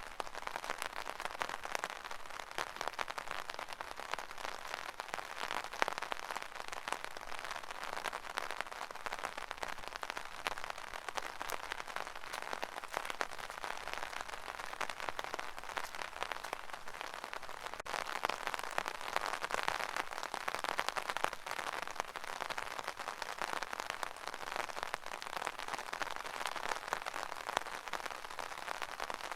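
Steady rain pattering on an umbrella canopy: a dense, even stream of small drop hits, with no letup.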